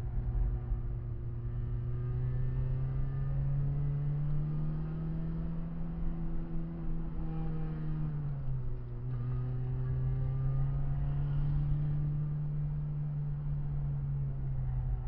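Renault Clio 16V's four-cylinder engine running hard at high revs, heard from inside the cabin with road rumble beneath. The revs climb slowly, dip briefly about eight seconds in, then hold high again.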